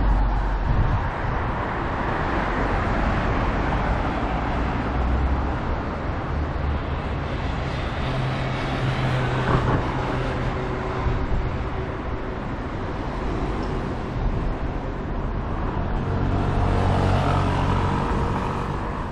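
City road traffic: a steady wash of car engine and tyre noise, with a low engine hum from passing vehicles that swells about halfway through and again near the end.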